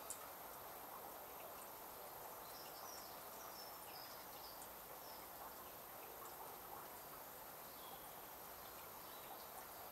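Faint outdoor ambience: a steady low hiss with a few faint bird chirps about three to five seconds in.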